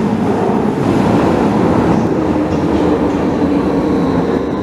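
Vienna U-Bahn train running into an underground station alongside the platform: a steady rumble of wheels on rails, with a faint high whine near the end.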